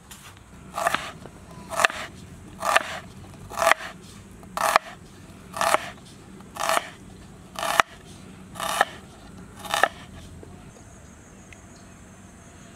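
A kitchen utensil making about ten short scraping strokes, roughly one a second, each starting with a sharp click; the strokes stop near the end.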